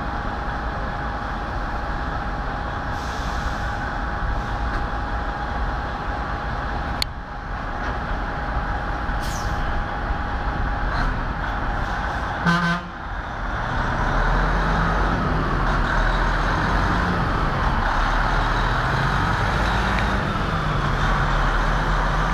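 Freightliner semi-truck's diesel engine running, with a short horn blast a little past halfway. The engine then grows louder as the truck pulls away past close by, its pitch rising and falling through the gear changes.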